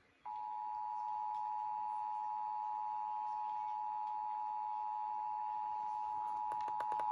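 Emergency Alert System attention signal: the steady two-tone alert of 853 Hz and 960 Hz sounded together, coming on a moment in after a short silence. A rapid run of faint clicks sounds over it near the end.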